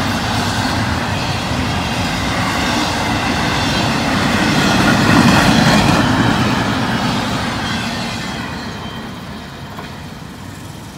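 Double-stack intermodal well cars of a freight train rolling past, steel wheels clattering on the rails. It is loudest about five seconds in as the last cars go by, then fades as the end of the train moves away.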